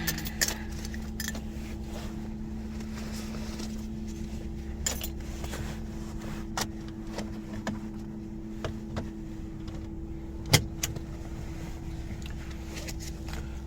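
Seat belt being pulled out and buckled: light rattles and clicks of the belt hardware, with one sharp click about ten seconds in, over a steady low hum inside the truck's cab.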